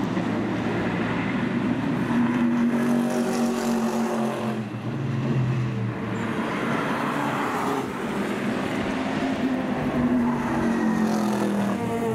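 Racing car engines running at speed, the engine pitch rising and falling several times.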